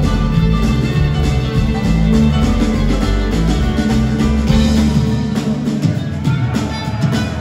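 Live band playing a song: a fiddle bowing over drums, bass and guitar. The deep bass thins out about five and a half seconds in.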